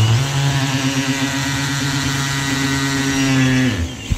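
Cordless drill driving a lag bolt through a projector ceiling mount into a ceiling stud, its motor running at a steady pitch for nearly four seconds, then winding down and stopping as the bolt seats, with a short click at the end.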